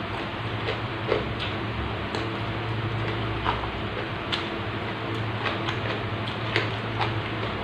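Close-up mukbang chewing with the mouth full: irregular wet mouth clicks and smacks over a steady low hum.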